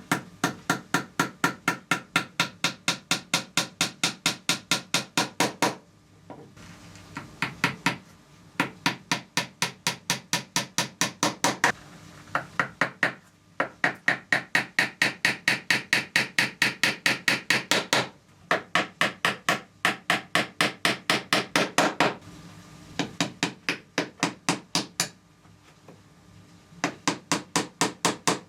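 Rapid, even hammer taps, about four a second, in runs of a few seconds broken by short pauses.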